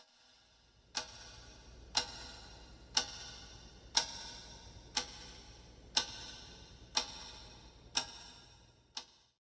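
Clock ticking sound effect, one sharp, briefly ringing tick every second, nine in all, over a faint low hum that fades out after the last tick.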